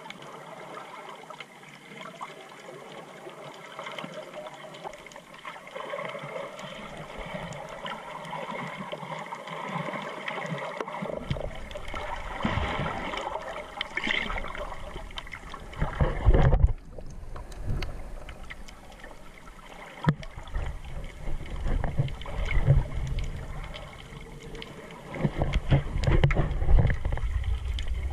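Muffled underwater water noise picked up by a GoPro in its waterproof housing while snorkeling, with gurgling and swirling water. From about eleven seconds in, uneven low rumbling surges of water wash against the camera.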